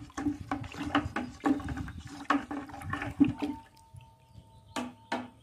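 Water sloshing and splashing in a white plastic bucket of wound-sealing solution for gladiolus bulbs, in uneven strokes about two a second. It stops about three and a half seconds in, and two short knocks follow near the end.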